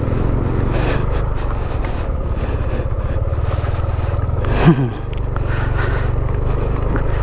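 Yamaha Aerox 155 scooter's single-cylinder engine running steadily under way on a dirt trail, with tyre and wind noise. About four and a half seconds in there is a brief louder sound that falls in pitch.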